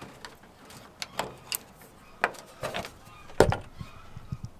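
A few sharp clicks and knocks at irregular intervals, the loudest about three and a half seconds in.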